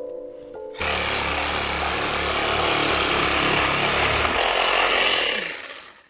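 Reciprocating saw cutting through the trunk of a small conifer. It starts about a second in, runs steadily, and fades out shortly before the end as the trunk is cut through.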